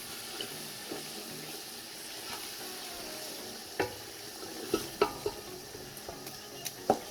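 Egusi frying in palm oil in a pot with a steady sizzle. A spoon stirs it and knocks against the pot several times in the second half.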